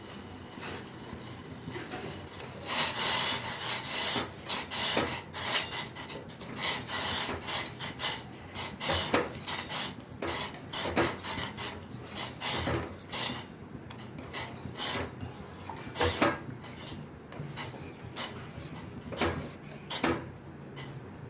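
Irregular rasping, scraping strokes, many in a row, starting about three seconds in and getting sparser in the second half.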